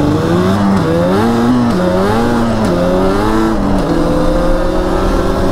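Yamaha Raptor 700 quad's single-cylinder four-stroke engine pulling under throttle. Its pitch climbs and drops back three times as it shifts up through the gears, then runs nearly steady at speed near the end.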